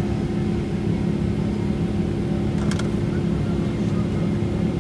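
Boeing 777-300ER jet engines: a steady low rumble with a constant hum that does not rise or fall.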